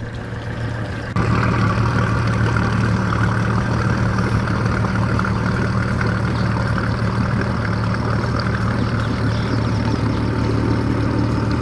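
Motorboat engine running steadily with a low hum, stepping up in level about a second in.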